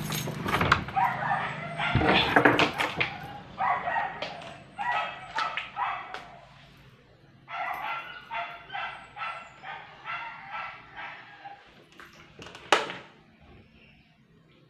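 A dog yipping and whimpering in short repeated calls, about two or three a second in the middle stretch, with a few sharp knocks, the loudest near the end.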